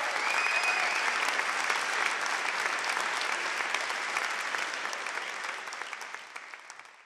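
Audience applauding, with a brief high-pitched cheer in the first second; the clapping fades out over the last couple of seconds.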